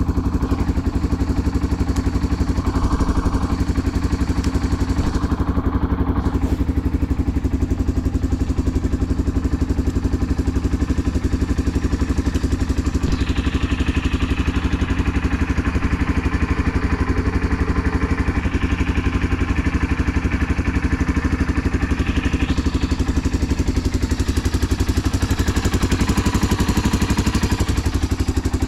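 Yamaha Serow 225's air-cooled single-cylinder four-stroke engine idling steadily through a Supertrap aftermarket up-muffler, running evenly with no abnormal noise.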